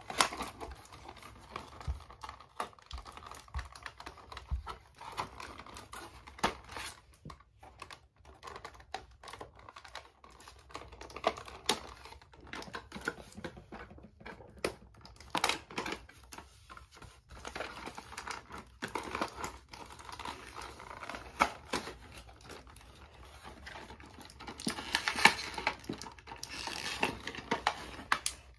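Scissors snipping and cutting through cardboard packaging: a run of irregular sharp clicks with scraping and crinkling as the card is cut and pulled apart, busiest near the end.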